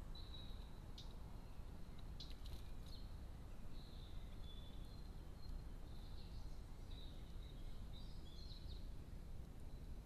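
Faint outdoor garden sound: small birds calling in short, high chirps, more often in the second half, over a steady low background rumble, with a few faint clicks in the first few seconds.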